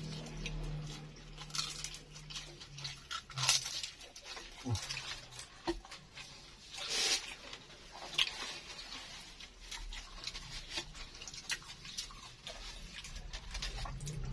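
A person chewing crispy fried egg martabak (baklor), with irregular short crunches and mouth noises.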